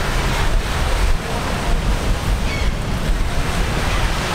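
Ocean waves washing in, with wind buffeting the microphone in a steady, gusting rumble.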